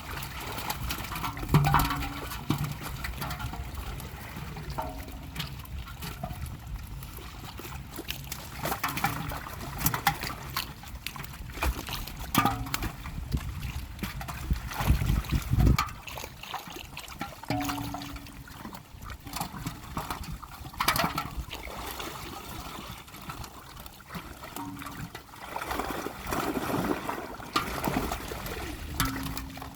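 Pond water splashing and trickling in irregular bursts, with sharper splashes here and there.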